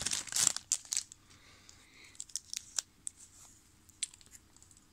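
Trading-card pack wrapper crinkling and tearing for about the first second, then faint scattered clicks and taps as the cards are handled.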